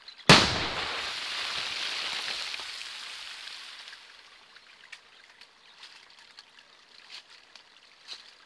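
Firecracker exploding in a water-filled ditch: one sharp bang, then a few seconds of hissing as the thrown-up water spray falls back, fading out, with scattered small patters afterwards.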